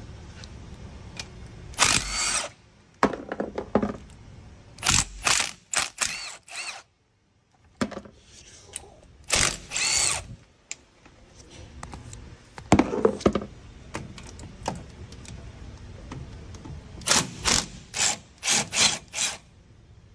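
Cordless impact wrench run in many short bursts, spinning out cover bolts one at a time.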